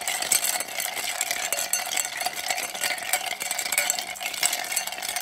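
Ice cubes stirred round a stemmed wine glass with a long metal bar spoon: a steady, rapid clinking and rattling of ice against the glass, done to chill the glass.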